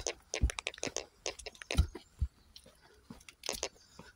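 Footsteps crunching on grit on a paved path, a dense run of irregular short crackles, with a few low thumps.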